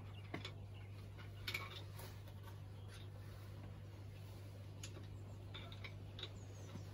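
Faint, scattered light clicks and taps, a few seconds apart, over a steady low hum.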